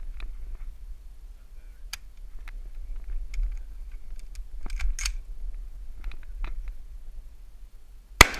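Low wind rumble on the microphone with scattered small clicks of rifle and gear handling, then a single loud shot from an AR-style rifle near the end, followed by a brief ring.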